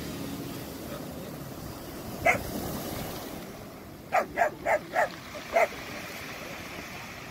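White German Shepherd barking: a single bark about two seconds in, then a quick run of five short barks a little past the middle. Underneath is a steady rush of waves on a pebble shore.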